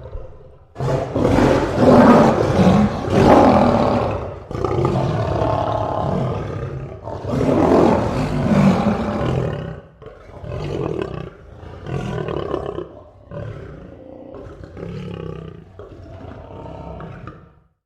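Lion roaring: three long, loud roars, then a run of about eight shorter grunts that grow gradually quieter and cut off suddenly near the end.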